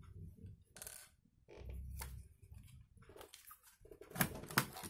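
Light clicks and taps from handling a laptop's hard drive and casing parts, with two sharper clicks near the end.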